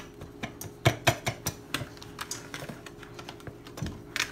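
Wire whisk stirring dry flour and sugar in a plastic mixing bowl: quick, irregular clicks and taps of the wires against the bowl, over a faint steady hum.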